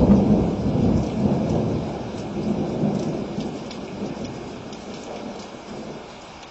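A roll of thunder over steady rain: the rumble is loudest at the start and dies away slowly over about six seconds, leaving the rain.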